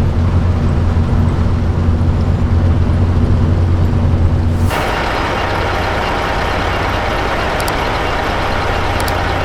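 Peterbilt 379 semi truck's diesel engine droning steadily, heard from inside the cab. About halfway through the sound changes abruptly: the engine drone drops lower and a steady loud hiss takes over.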